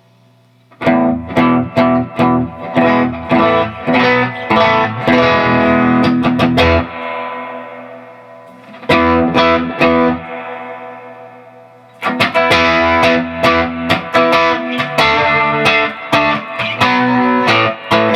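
Electric guitar played straight through a Dr. Z MAZ18 tube amp head into a 1x12 cabinet with a 12-inch Celestion speaker, with no pedals and the amp's volume turned up. Rhythmic strummed chords start about a second in. They stop twice to let a chord ring out, then start again, the last time a little before the end.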